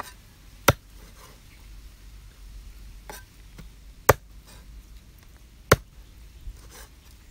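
Meat cleaver chopping raw frog pieces on a round wooden chopping block: a few sharp single chops, unevenly spaced one to two seconds apart, with lighter taps between.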